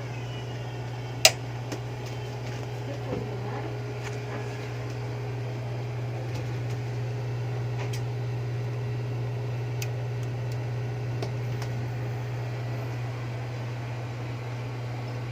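Steady hum of fans running, with a constant low drone, and a single sharp click about a second in.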